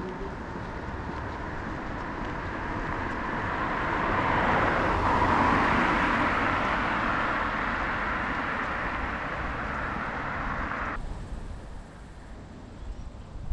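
A road vehicle passing by: its noise swells to a peak about five seconds in, then fades, and cuts off abruptly near the end.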